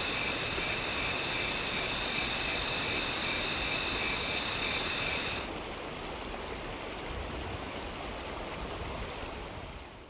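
Outdoor nature ambience sound effect: a steady rushing noise like running water, with two high steady trills, one of them pulsing, that stop about five and a half seconds in. The rushing goes on and fades out at the very end.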